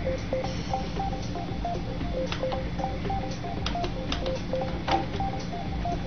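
Background music: a repeating ticking two-note figure, about three notes a second, with a few sharp clicks of laptop keys being typed, the loudest about five seconds in.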